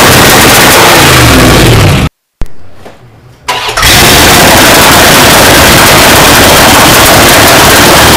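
Dodge pickup's 318 V8 running rough and loud enough to overload the recording, its revs rising in the first two seconds. The sound cuts out abruptly about two seconds in, comes back faint, then returns at full loudness.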